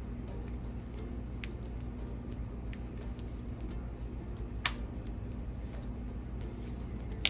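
Scattered light clicks and taps of a small hand tool prying at an old pull-starter rope jammed in a chainsaw's recoil starter pulley, with one sharper click about four and a half seconds in and another near the end, over a steady low hum.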